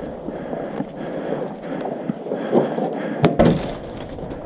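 Rustling and shuffling of a player moving during an airsoft game, with one sharp crack about three seconds in.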